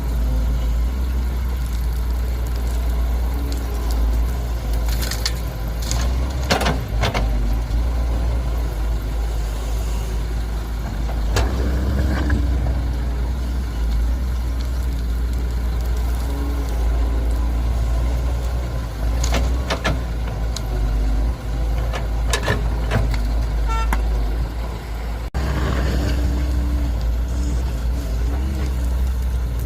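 Heavy diesel engines of an excavator and dump truck running with a steady low drone, with scattered knocks and clanks of the machines working soil.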